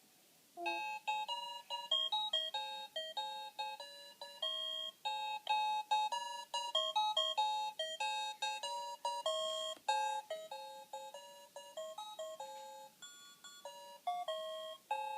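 A tinny electronic melody of quick beeping notes, about three or four a second, each starting sharply and fading fast, like a toy or a small device playing a tune.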